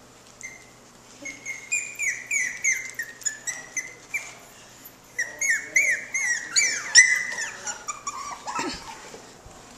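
Teddy bear puppies yipping while they play: rapid high-pitched yips, several a second, in two runs with a short pause between, the last call a longer whine falling in pitch.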